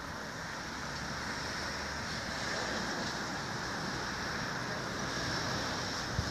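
Steady outdoor noise of wind on the microphone and distant road traffic, with no distinct events.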